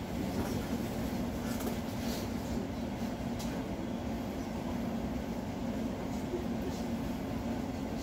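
Steady low rumble and hum inside the carriage of an Elizabeth line Class 345 electric train.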